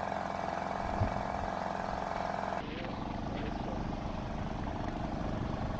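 A boat motor running steadily with an even drone. The sound changes abruptly about two and a half seconds in.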